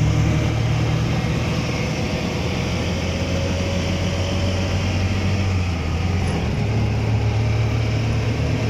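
Auto-rickshaw engine running steadily while riding through traffic, heard from inside the open cabin with road noise around it; the engine note shifts a little about six seconds in.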